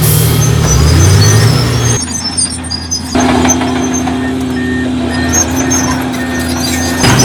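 Diesel engines of heavy earthmoving machinery (bulldozer and dump trucks) running; the sound changes abruptly about two seconds in and again about three seconds in, then holds a steady engine tone.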